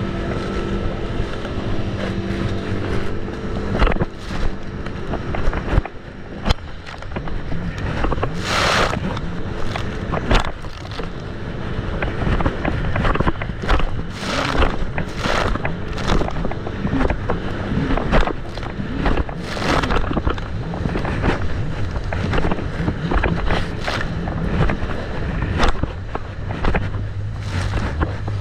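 Jet ski engine running on the water, with wind rushing over the microphone in several loud gusts.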